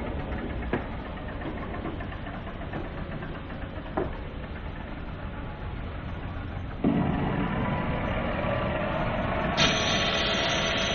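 Steady engine noise of running machinery, with two sharp knocks in the first four seconds. It turns abruptly louder about seven seconds in, and again near the end.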